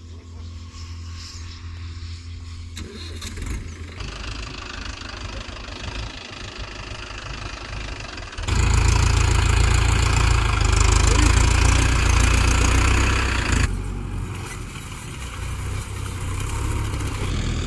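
Mahindra tractor diesel engine running in the mud, a low steady rumble that becomes much louder about eight seconds in for some five seconds, then eases back.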